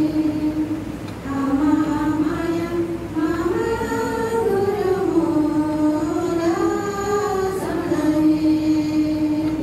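Slow singing with long held notes: a sustained note, then a melody that rises and falls over several seconds, then another long held note.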